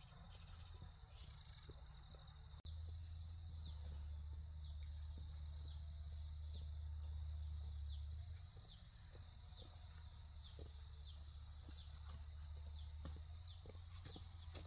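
A bird calling with a run of short, high, falling whistled notes, roughly one a second, starting about two and a half seconds in. Underneath are soft footsteps on a dirt path and a steady low rumble.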